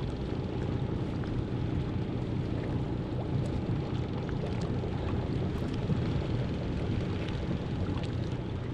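A boat's motor running steadily with a low drone, under the rush of water and wind moving past the hull.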